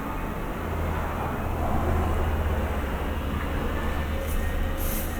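A steady low hum over an even background rush, with two brief high hisses near the end.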